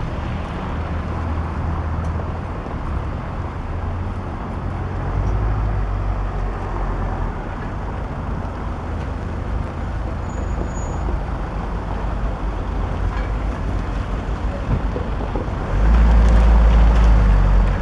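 Steady low rumble of passing vehicles, much louder and deeper for the last two seconds.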